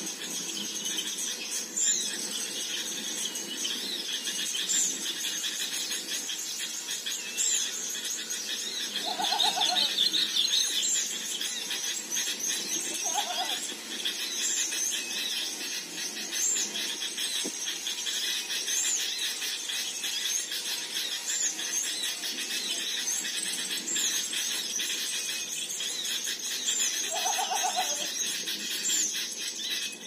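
Small songbirds calling: a short, high call repeated about once a second over constant high twittering, with a few short, lower calls heard three times.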